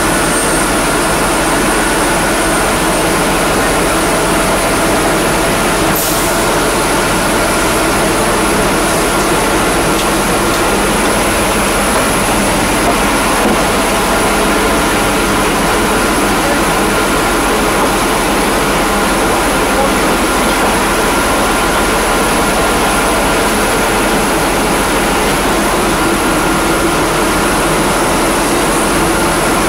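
Jet aircraft turbine noise on an airport ramp: a loud, steady rush with a constant high-pitched whine over it.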